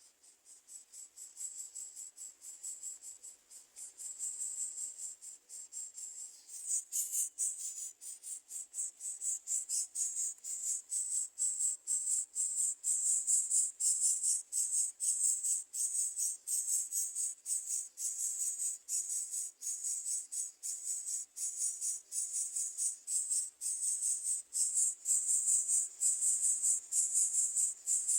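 Insects chirping in a rapid, even, high-pitched pulse that grows louder about six seconds in.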